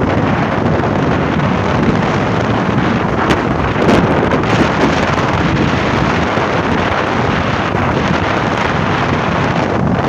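Steady, heavy wind noise buffeting the microphone of a moving motorcycle, with a brief swell about four seconds in as an oncoming truck passes.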